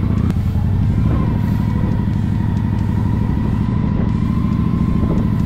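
Honda Shadow 750's V-twin engine running steadily as the bike is ridden, exhaust baffles removed, a throaty note. Its pitch settles a little lower about a second in, then holds.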